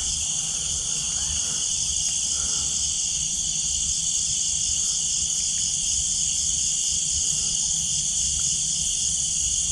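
Steady chorus of crickets and other night insects, several shrill trilling bands sounding together without a break, over a faint low rumble.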